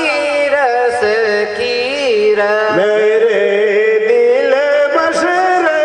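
A man singing a slow devotional chant into a microphone, with long held notes that glide and waver in pitch.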